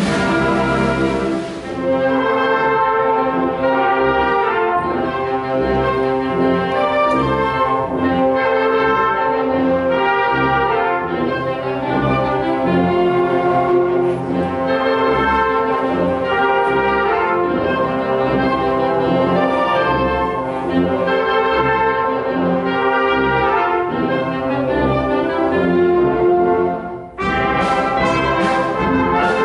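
Wind band playing, brass carrying the tune over low held notes. The music drops away briefly near the end, then starts again.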